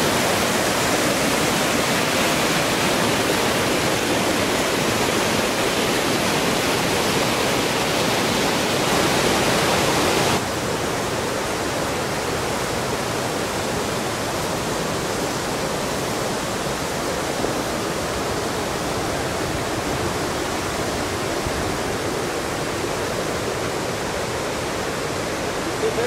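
Waterfall's water rushing in a steady, even wash of noise; about ten seconds in it drops slightly in level and loses some of its hiss.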